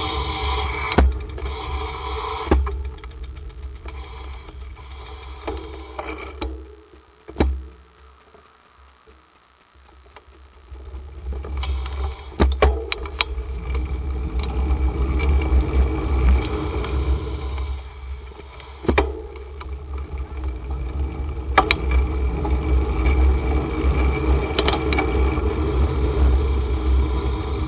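Street traffic and road noise heard while cycling through a city: a steady low rumble with car engines and tyres, and scattered sharp clicks and knocks. The noise falls almost quiet for a few seconds about eight seconds in, then builds back up.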